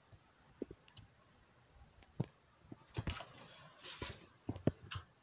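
Faint, scattered clicks and soft knocks, a handful spread over a few seconds with a cluster near the end, and a short rustle about four seconds in.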